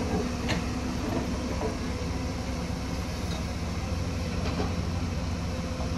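The diesel engines of two tracked excavators, a Kobelco and a Hyundai, running steadily under working load, with one short knock of rock or bucket about half a second in.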